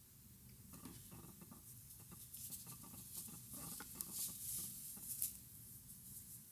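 Soft scratching and rustling of cotton yarn being worked with a crochet hook, with small irregular ticks and a sharper click about four seconds in and again about five seconds in.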